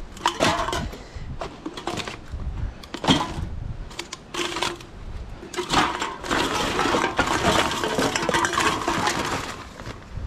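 Empty aluminium drink cans and plastic bottles clinking and clattering as they are dropped into a plastic bag, with the bag rustling, busiest in the second half.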